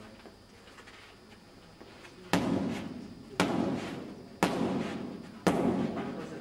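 Four hand strikes landing on a hand-held striking pad, about one a second, each a sharp slap-thud with an echo that dies away in a large hall.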